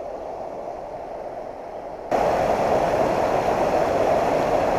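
Rushing water of a fast mountain stream, a steady hiss. It jumps suddenly louder about two seconds in, as if the microphone is suddenly much closer to the flow.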